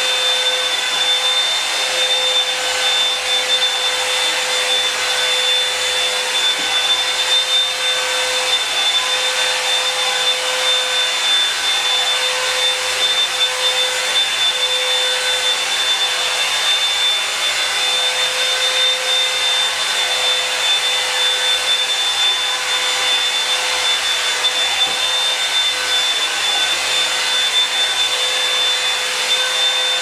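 Revlon One-Step hot-air dryer brush running continuously as it is pulled through hair: a steady rush of blown air with a constant high whine and a lower hum from its motor and fan.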